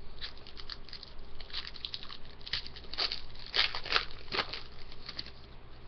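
Hockey trading cards being handled by hand: a run of light, irregular crinkles and card flicks, loudest about three to four and a half seconds in.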